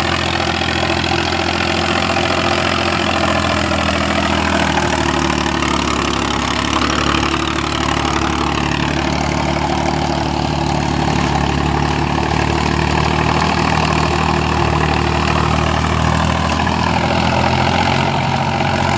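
Indo Farm tractor's diesel engine running steadily under load, pulling an 8-foot double-rotor rotavator through the soil, with the churning noise of the rotavator over the engine.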